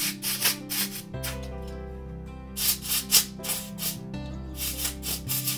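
Short bursts of canned compressed air blowing dust out of a small laptop cooling fan, a quick series of hisses in several groups, over background music.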